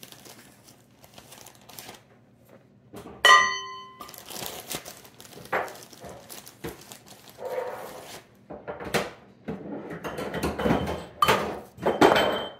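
Plastic bag of flour crinkling as flour is scooped with a metal measuring cup and poured into a glass mixing bowl. The cup strikes the glass bowl with a loud ringing clink about three seconds in, and there are lighter clinks near the end.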